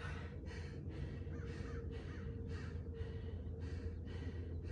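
A man panting hard after an exhausting workout, with rapid, even breaths about two a second.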